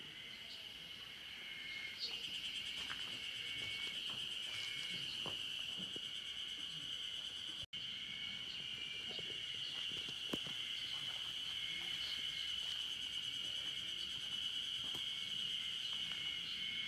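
Insects droning in a steady, high-pitched chorus, with a fainter, broken tone just below it. It cuts out for an instant near the middle.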